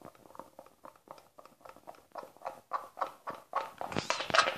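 Glue and shaving-foam slime being stirred in a container: a rapid, irregular run of small clicks and squelches that grows louder in the last second and a half.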